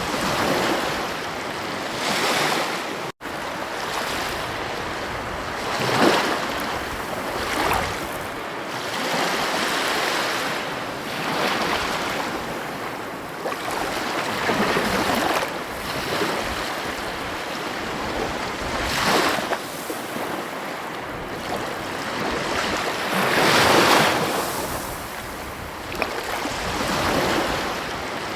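Ocean surf breaking on a beach: a steady wash of water with a wave surging up every few seconds. Near the start the sound drops out for an instant.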